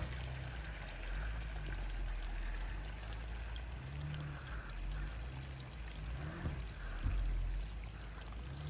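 Water pouring and trickling off a 4WD as it comes through a muddy water hole, over a low, steady engine rumble.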